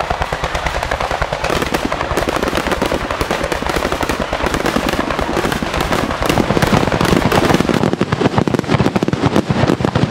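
Aerial fireworks going off in rapid succession: a dense run of sharp cracks and pops, growing louder about six seconds in.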